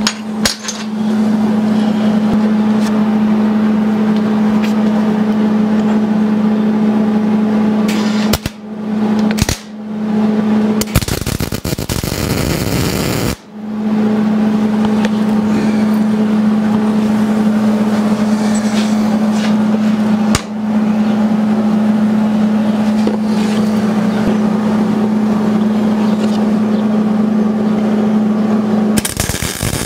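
A loud, steady machine hum in a workshop, broken twice by short dropouts and, a little before the middle, by about two seconds of harsh hiss and crackle. The hum stops near the end.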